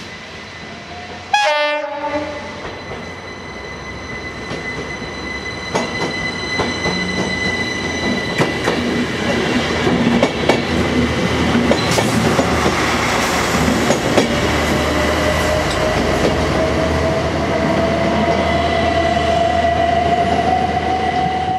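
Network Rail multi-purpose vehicle (MPV) running through the station: a short horn blast about a second and a half in, then steady wheel-and-rail noise with a high whine and clicks over the rail joints as it passes. A tone rises slowly in pitch through the second half while the train goes by.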